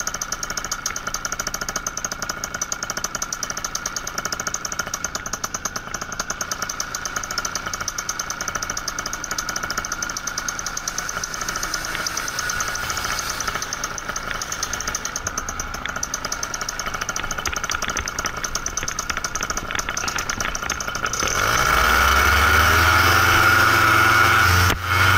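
Paramotor engine idling with a fast, even pulse, then throttled up about 21 seconds in, getting much louder as its pitch rises.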